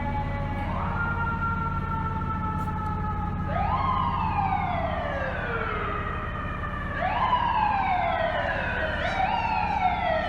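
Fire truck's mechanical siren being wound up again and again: each time the pitch climbs quickly and then slowly coasts down, three times after a slow falling tone at the start, over a steady low drone.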